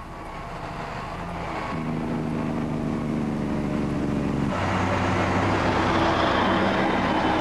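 Loaded dump truck's diesel engine pulling away, growing louder, its note changing and getting brighter about four and a half seconds in.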